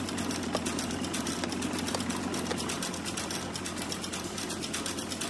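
Garbled sound of a VHS tape played back in rewind search: a steady, rapid, even rattle-like buzz that starts abruptly as the VCR goes into rewind.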